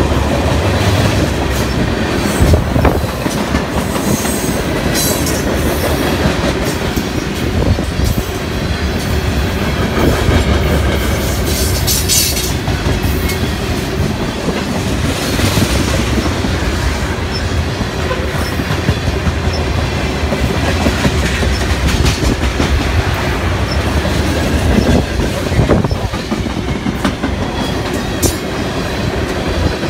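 Freight train of tank cars and covered hoppers rolling past at close range: steel wheels clacking over rail joints with a steady rumble. A few brief high-pitched wheel squeals come through, most clearly near the middle.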